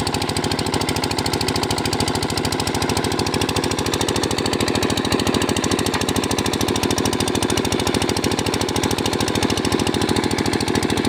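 Borewell drilling rig running steadily: an engine sound with a fast, even pulse that does not change.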